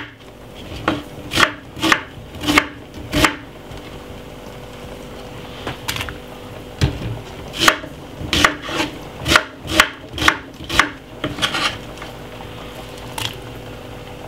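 Kitchen knife cutting a white onion against a wooden chopping board: sharp strikes about half a second apart, a pause of a couple of seconds, then a longer uneven run of cuts. A faint steady hum runs underneath.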